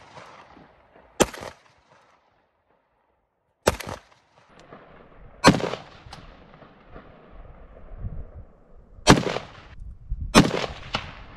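Five single shots from an AR-style semi-automatic rifle, fired one at a time at uneven gaps of one to three and a half seconds. Each crack trails off in a long echo.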